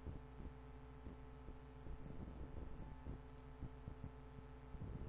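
Faint steady electrical hum with soft, regular ticks several times a second: the background noise picked up by a desktop recording microphone.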